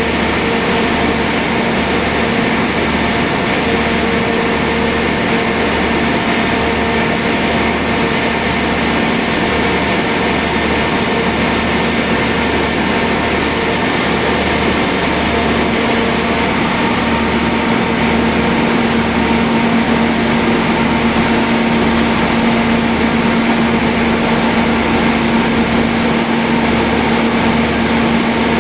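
Generator set running steadily at rated speed on a light load, a constant engine drone with a steady whine on top. The alternator is putting out 415 V at 50 Hz under its newly fitted Meccalte DER1 voltage regulator.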